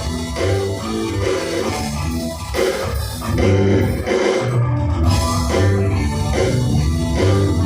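Live rock band playing with drum kit, electric guitar and bass during a sound check.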